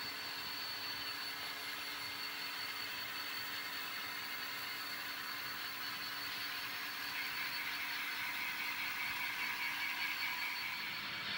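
N scale model diesel locomotives running along the track, a steady whir of their small electric motors and wheels on the rails, with a thin high whine over it. It grows a little louder about seven seconds in.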